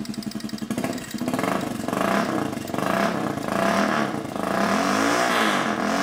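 Turbocharged Honda CT110 postie bike's small single-cylinder four-stroke engine, idling with even pulses and then revved repeatedly from about a second in, its pitch rising and falling with each twist of the throttle.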